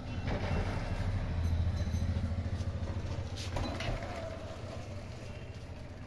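A motor engine running with a low, evenly pulsing throb that grows louder over the first couple of seconds and then slowly fades.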